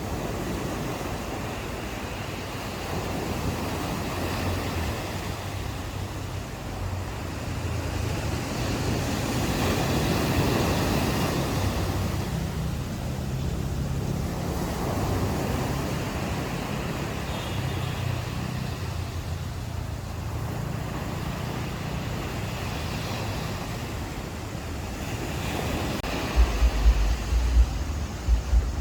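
Ocean waves washing onto a beach, each swelling and falling away over a few seconds, with a low rumble underneath. Wind gusts buffet the microphone near the end.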